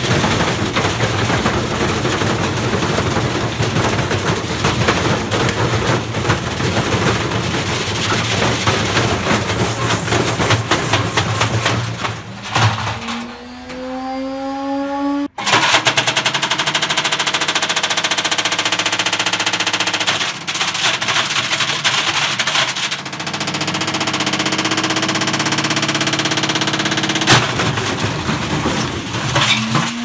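Indesit W133 washing machine spinning with a brick loose in the drum: a rapid, continuous hammering and clattering as the brick pounds the drum and the wrecked cabinet shakes. About 13 s in, the drum motor's whine rises as it speeds up. After a short break the hammering and clatter resume over a steady motor hum, with one sharp bang near the end and another rising motor whine at the close.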